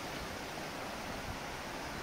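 Rainwater runoff rushing steadily along a stone-lined channel and over a paved crossing: a continuous hiss of running water.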